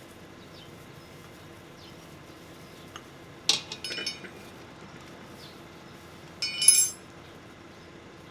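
Two short bursts of hard clinking with a ringing tone, one about three and a half seconds in and a louder one about six and a half seconds in, as metal tools or parts are handled and set down. A faint steady hum runs underneath.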